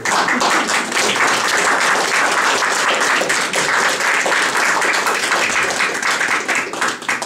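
A roomful of people applauding steadily, the clapping dying away at the end.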